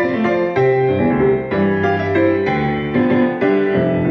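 Instrumental piano interlude of a song: a melody over chords, the notes changing about every half second.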